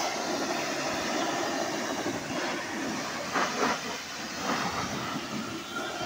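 Pressure washer blasting a jet of water onto a motorcycle: a steady spraying hiss, with a few louder surges a little past the middle.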